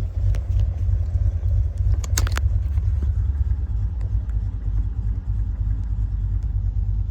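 Land Rover driving, heard from inside: a steady low engine and road rumble, with a short clatter about two seconds in.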